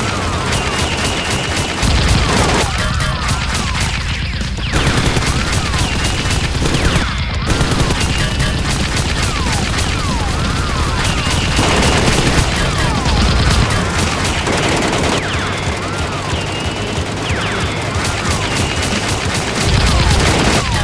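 Bursts of rapid automatic gunfire sound effects, laid over a toy-blaster fight, with deep booms a few times and whistling effects over the shots.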